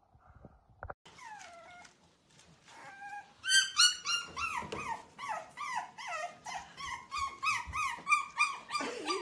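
Several puppies whining and yelping in quick succession, high-pitched cries that fall in pitch. They start about a second in and become louder and nearly continuous halfway through.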